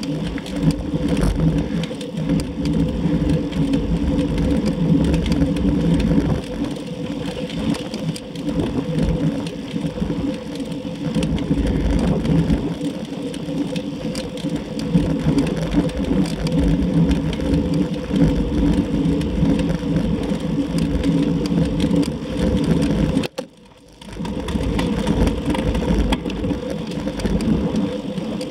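Steady road noise from a road bicycle at speed on asphalt: wind rushing over the mounted camera's microphone with tyre roar. It cuts out briefly about 23 seconds in.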